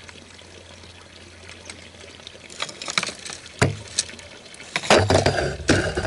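Water splashing as a hooked tilapia thrashes at the surface, quiet at first and then irregular and loud from about two and a half seconds in, mixed with sharp knocks from a landing net being picked up and handled.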